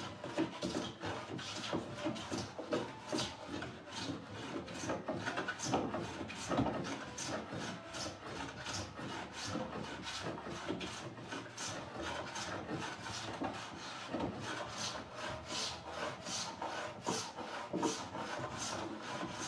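Hand plane being pushed over wooden door joints in rapid repeated strokes, shaving the wood to level the uneven joints.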